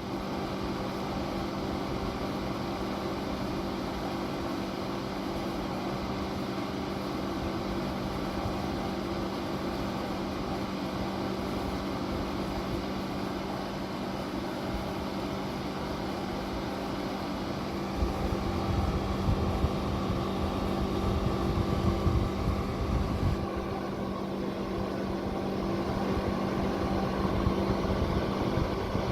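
Small electric cooling fan of a DIY Peltier-module air cooler running with a steady hum. For several seconds past the middle a louder, uneven low rumble is added.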